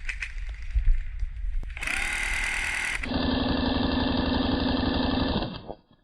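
Airsoft minigun firing a sustained burst of about four seconds, a steady rapid mechanical buzz that stops abruptly near the end. Before it, a few knocks and rustles of handling.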